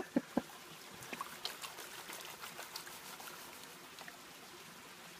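Creek water sloshing and trickling as a plastic gold pan of gravel is swirled and dipped in the stream, with many small splashes that fade out after about three seconds. Two sharp knocks come right at the start.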